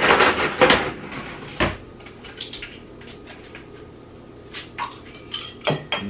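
Kitchen handling sounds: a loud rustle close to the microphone in the first second, a sharp knock, then scattered small clicks and taps as a small bottle is opened by hand.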